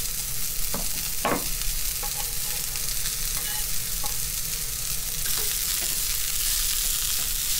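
Daikon peel and julienned carrot sizzling in sesame oil in a frying pan, being stir-fried with chopsticks. A few light knocks come near the start, and the hiss grows a little stronger after about five seconds as the added carrot is stirred in.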